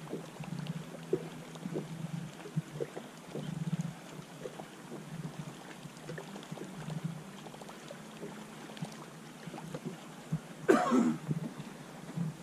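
Small waves lapping and slapping against the hull of a fishing boat, in soft swells every second or two with scattered small clicks. About eleven seconds in comes a brief, louder rush of noise.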